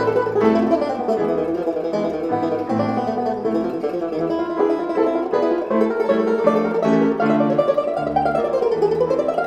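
Background instrumental music played on plucked strings, with a banjo to the fore, in a country or bluegrass style.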